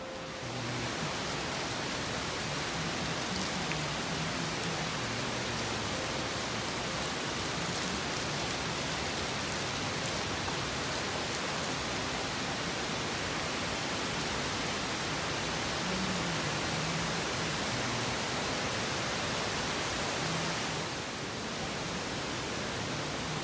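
Steady rushing of falling water from an indoor water feature in a large hotel atrium, dropping slightly in level near the end.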